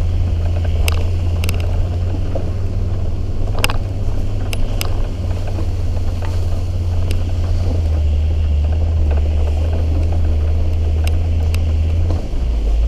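Off-road 4x4 driving slowly over a forest dirt track, its engine giving a steady low drone with rumble from the tyres and body. Sharp knocks and rattles come now and then from the bumps.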